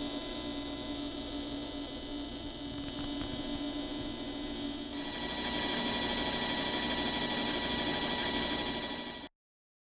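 Harbor Freight 93212 7x10 mini-lathe running, a steady motor hum and whine with several fixed tones and a gear rattle underneath. It gets a little louder about five seconds in and stops abruptly near the end.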